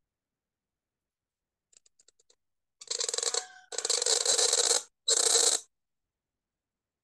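The cut nib of a calligraphy qalam scratching across paper as it draws a long stroke of a naskh letter, in three scratchy pushes from about three seconds in, each cutting in and out abruptly, with a few faint ticks just before.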